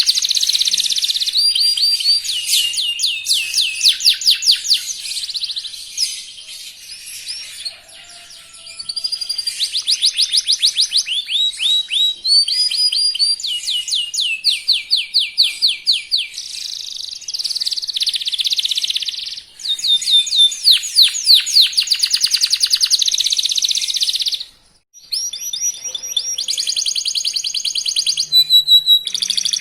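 Young local canary singing a fast, continuous song made of rolling trills: runs of rapidly repeated notes, each run changing to a new note pattern, with a brief break about 25 seconds in.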